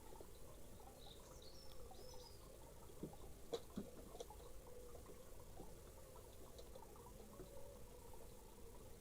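Quiet garden ambience: faint high chirps of small birds about a second in, and a few light taps in the middle, over a low steady hum.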